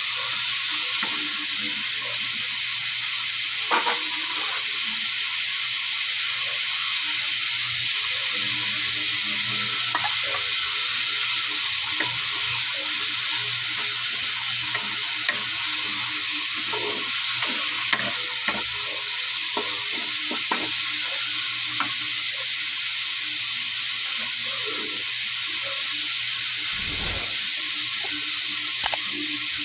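Papaya chunks and onion sizzling in oil in a nonstick pan, a steady hiss, while a wooden spatula stirs them with scattered scrapes and clicks against the pan.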